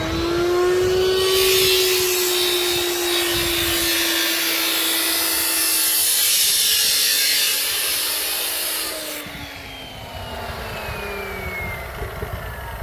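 Handheld power tool, most likely an angle grinder, running up to speed with a steady whine. It then grinds for about eight seconds with a loud, bright rasp. After that it runs free and its whine slowly falls as it winds down.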